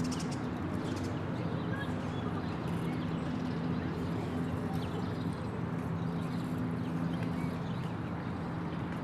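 Daytime city park ambience: a steady wash of background noise under a constant low hum, with occasional short chirps and ticks.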